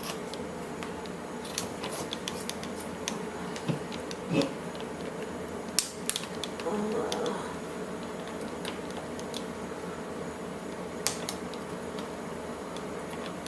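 Scattered light clicks, taps and snips as an Elmo Live robot toy is handled and cut open, with a few sharper clicks near the two, four, six and eleven second marks.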